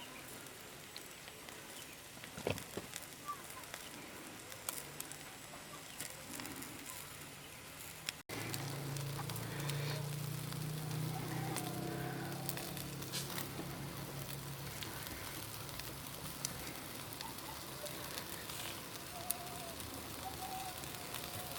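Cooking fire crackling, with scattered sharp pops. A steady low hum starts abruptly about eight seconds in and slowly fades.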